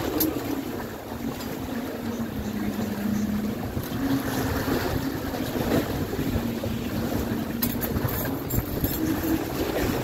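Boat engine running with a steady low hum, under splashing, churning water and wind buffeting the microphone.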